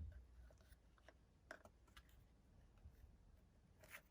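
Near silence with a few faint, scattered taps and light clicks of paper and card being handled and pressed down on a craft table.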